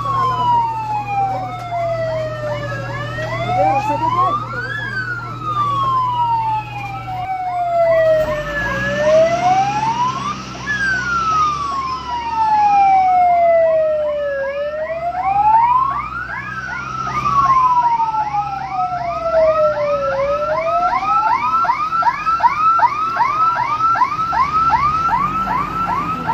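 Ambulance sirens wailing, two at once. One gives a slow wail that rises quickly and falls slowly, repeating about every six seconds. The other gives a fast warble of several short sweeps a second, steadier and denser in the second half. A vehicle engine runs low underneath.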